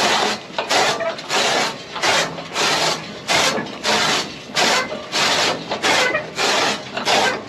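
Hand-cranked chaff cutter chopping green fodder stalks: a rasping crunch each time a flywheel blade slices through, about two cuts a second in a steady rhythm.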